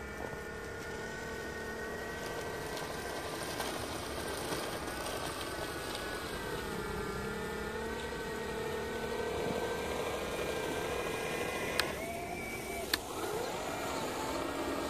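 A 3D-printed mini RC snow blower's motor and impeller whine steadily while it throws snow. The pitch sags and recovers a couple of times as the load changes. Two sharp clicks come about a second apart near the end.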